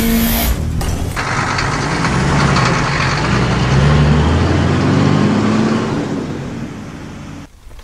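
Cartoon sound effect of a heavy truck engine running and revving, its pitch rising and falling, fading as the truck pulls away and cut off sharply near the end. In the first second a rapid mechanical clatter from the truck's transforming parts.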